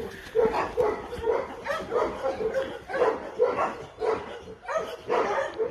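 A dog barking over and over, about three barks a second.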